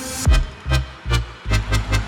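Electronic music with deep, punchy kick drums at about two beats a second.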